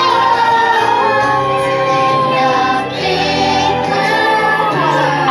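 Ride show music: a choir of voices, including children's and women's voices, singing long held notes over a musical backing.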